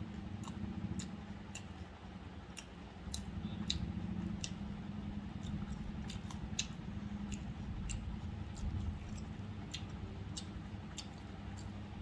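A person chewing a mouthful of mutton biryani close to the microphone: many small, irregular wet mouth clicks and smacks, over a steady low hum.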